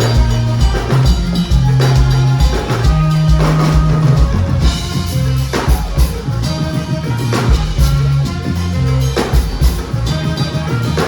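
Ghanaian gospel-highlife band playing live, with a drum kit keeping a steady beat over a repeating bass line and other pitched instruments.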